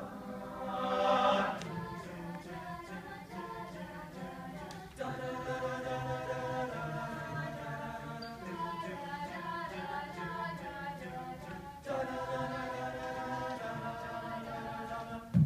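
Mixed-voice a cappella group singing held chords with no instruments. It swells loudest about a second in, and fresh chords come in about five seconds in and again about twelve seconds in.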